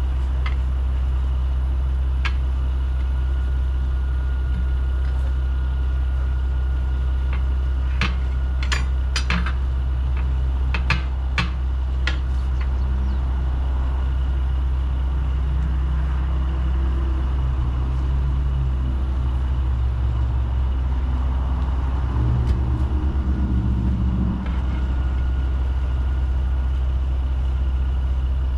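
A steady, loud low drone of an idling diesel engine runs throughout. Between about 8 and 12 seconds in comes a quick run of sharp metallic clinks and knocks, steel tire irons striking a truck wheel rim while the tire is pried off.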